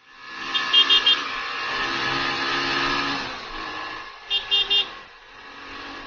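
Motorcycle engine running as it rides, getting louder over the first three seconds and then easing off, with a horn tooting three quick times about half a second in and three more times about four and a half seconds in.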